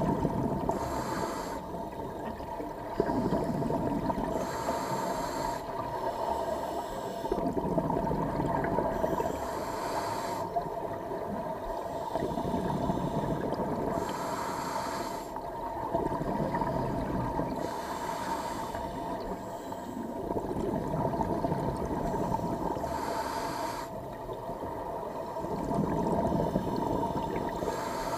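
Scuba diver breathing through a regulator underwater: about every four to five seconds a short hiss of inhaling, then a longer bubbling, rumbling exhale, over a steady faint hum.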